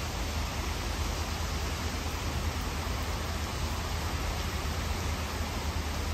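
Steady outdoor background noise: an even hiss with a constant low rumble beneath it, with no distinct events.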